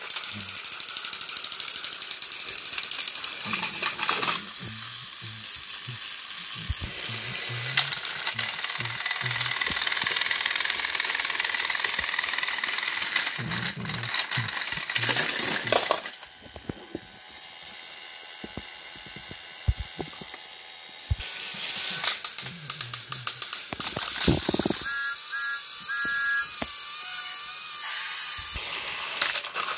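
Battery-powered Trackmaster toy train motors whirring, with their plastic gears and wheels grinding and clicking as two engines push nose to nose against each other on plastic track. Warbling electronic tones sound briefly near the end.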